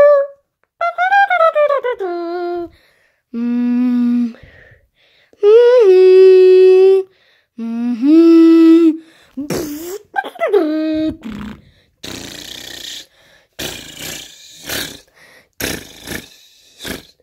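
A person's voice making wordless mouth sounds: a string of held, swooping notes for about eleven seconds, then a run of short, rough, hissing sounds.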